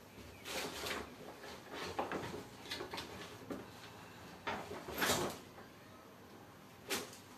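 Objects being moved and handled: a series of uneven rustles and knocks, the loudest about five seconds in and a short sharp one near the end.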